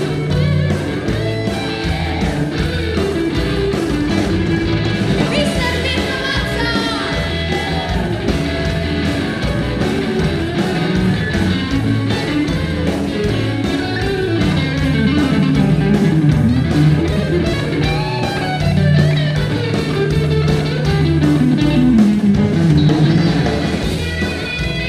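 A live rock band playing: electric guitars, bass, drums and keyboards, with a female lead singer.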